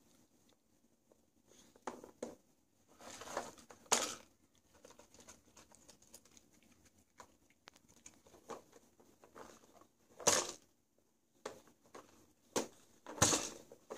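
Hard plastic clacks, knocks and scrapes as a dog noses and paws at a Nina Ottosson Dog Casino puzzle toy, working at its end drawers. The sounds are irregular, with the loudest knocks about four, ten and thirteen seconds in.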